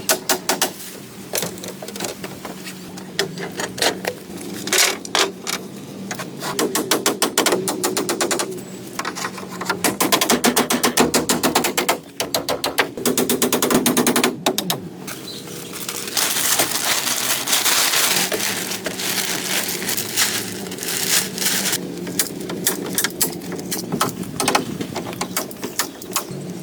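Rapid runs of sharp knocks and taps, typical of tools working wood. A little past halfway there is a stretch of hissing noise lasting about three seconds.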